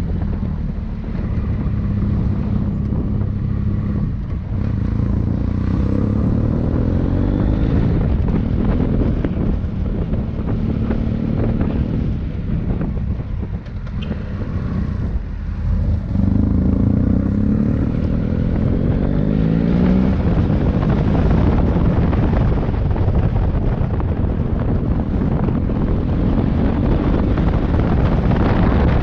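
Motorcycle engine running under way, its pitch rising and falling with the throttle, with wind rumbling on the microphone. The engine eases off about halfway through, then picks up again and stays loud.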